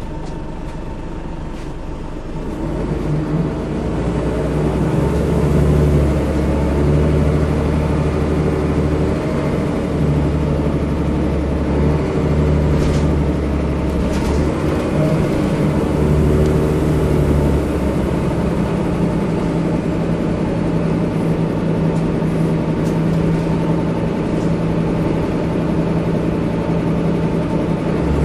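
Diesel engine of a single-deck bus, heard inside the saloon, building up as the bus pulls away and then running under load. The engine note changes a few times as it goes.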